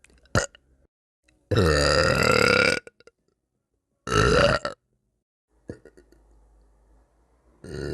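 A woman burping: a long burp of over a second, a shorter one about four seconds in, and a third starting near the end.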